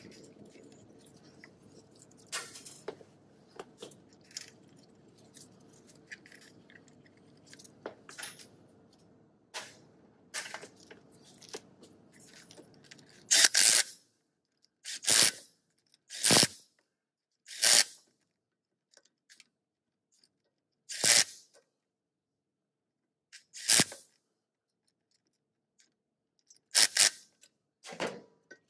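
Cordless impact wrench running the bolts of a CV axle's inner flange into the front differential, in about eight short bursts of under a second each, starting about halfway through. Before that, only faint clicks over a low hum.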